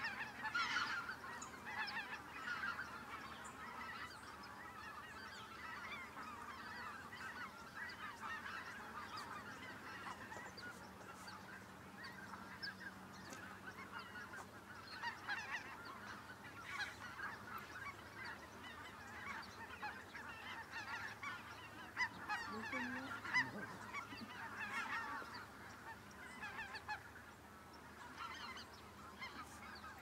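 A large flock of snow geese calling: a dense, continuous chorus of many overlapping high-pitched honks, swelling near the start and again about three quarters of the way through.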